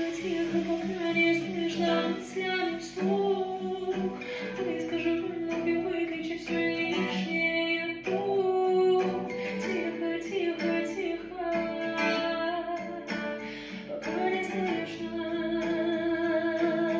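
A woman singing to a plucked guitar accompaniment, holding long notes with vibrato.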